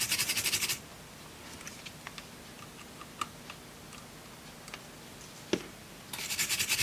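Quick back-and-forth scrubbing on a circuit board to clean off solder flux. The scrubbing stops under a second in and starts again about six seconds in. In between there are faint scattered ticks and one sharper click.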